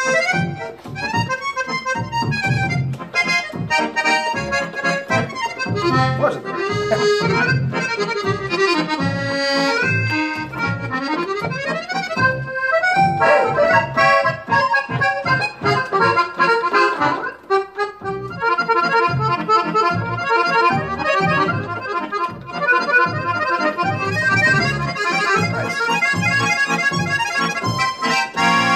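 Roland FR4X digital accordion played in musette voices: a fast melody over a regular bass pulse from the left-hand buttons. A short break comes a little past halfway.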